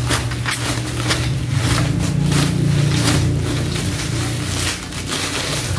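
Plastic bubble wrap crinkling and rustling in irregular bursts as it is handled and pulled off a plastic tumbler, over a steady low hum.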